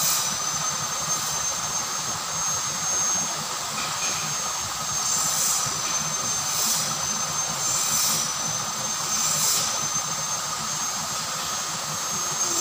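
Water pouring down a small cascade into a drainage ditch, a steady rushing, with a faint thin high whine and soft high chirps repeating every second or so.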